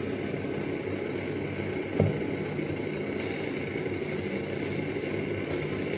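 Steady low mechanical hum with one dull thump about two seconds in.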